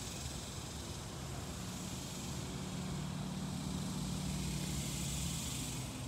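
A low engine hum, a passing motor, swells through the middle and fades near the end, over a steady hiss.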